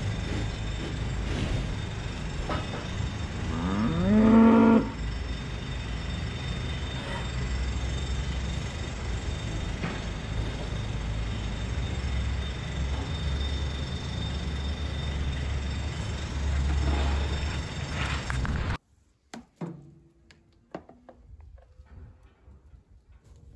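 A Holstein dairy cow moos once about four seconds in, a rising call, over a steady low rumble. Near the end the rumble cuts off suddenly, leaving only a few faint knocks and clicks.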